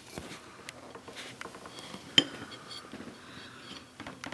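Light clicks and taps of a rubber zip-gear strip and a craft knife being handled on a ceramic plate, with one sharper click about two seconds in.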